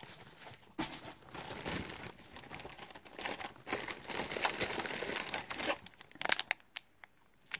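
Plastic packaging pouches crinkling and rustling as they are handled and taken out of a box, in irregular bursts of crackle; it dies down to a few light clicks near the end.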